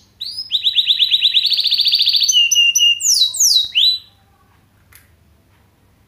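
Mozken, a yellow-fronted canary × domestic canary hybrid, singing canary-style song. It gives a fast rolling trill of repeated notes for about two seconds, then a few short lower notes and several downward-sweeping whistles, and falls silent about four seconds in.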